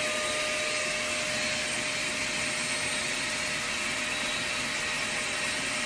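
Handheld vacuum cleaner running steadily with a constant motor whine, its nozzle held over a fried egg to suck up the excess pepper.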